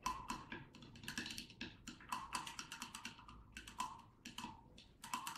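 A wooden stick clinking against the inside of a stemmed wine glass as water is stirred in it: quick, irregular taps, several a second, some leaving a brief ring from the glass.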